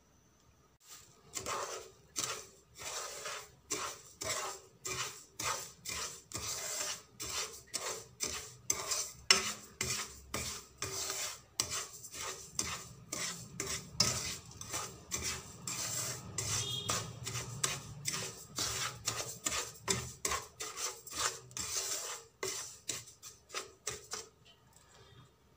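Wooden spoon scraping dry granulated sugar around a pan in quick repeated strokes, about two a second, before the sugar melts. The strokes stop shortly before the end.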